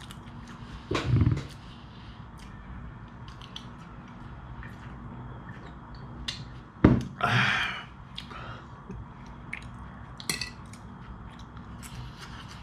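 Mouth sounds of a person eating: chewing and small lip smacks. About seven seconds in, while he drinks from a glass bottle of soda, there is a sharp knock and then a short breathy noise.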